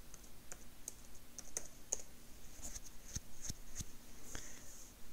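Computer keyboard being typed on: a run of separate, irregularly spaced key clicks, a few of them heavier around the middle.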